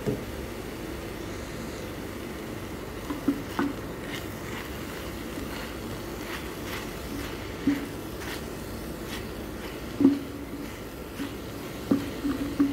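Wooden spatula knocking and scraping against a pan while stirring minced chicken: a handful of short, irregular knocks, the loudest about ten seconds in, over a steady low hum.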